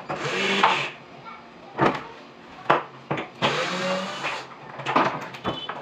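A small power tool's motor whirring in two short bursts, each about a second long, the second rising in pitch, with sharp knocks on wood in between, as the lower part of a plywood wardrobe is put together.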